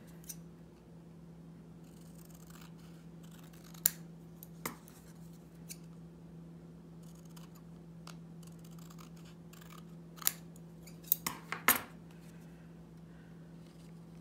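Small craft scissors snipping a thin piece of cardstock: a few sharp separate snips, then a quick cluster of them near the end, with soft paper rustling in between. A faint steady hum runs underneath.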